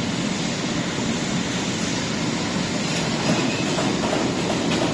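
Steady mechanical rumble and rattle, with a few faint clicks near the end.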